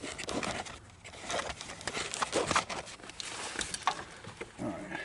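Scattered clicks, knocks and rustling as a camera is handled and settled in place in a truck's engine bay, with the engine not running.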